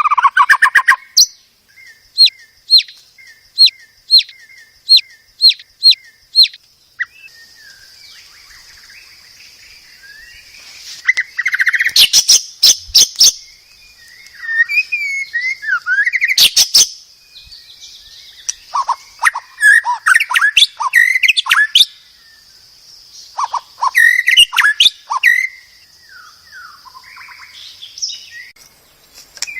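White-rumped shama singing: a run of about seven sharp, evenly spaced notes, then loud rapid trills and varied whistled phrases that glide up and down, with short pauses between phrases.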